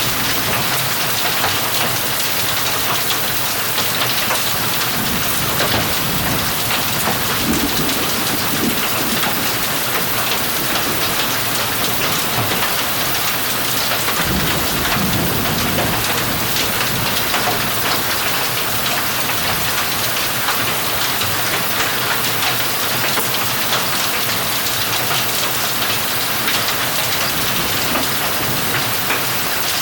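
Heavy thunderstorm downpour, a dense steady hiss of rain pelting down, with low thunder rumbling twice in the middle.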